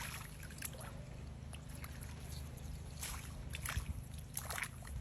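Shallow water splashing and sloshing in short bursts, several times, over a steady low rumble.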